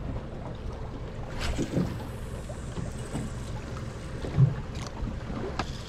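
Wind on the microphone and water slapping around a small boat on the open bay, with a few light knocks from rod and reel handling, one a little past four seconds in.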